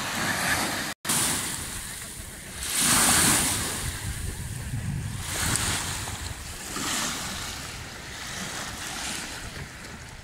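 Small lake waves lapping and washing up onto a sandy shore, one swell of foamy wash after another every couple of seconds. The audio cuts out for a moment about a second in.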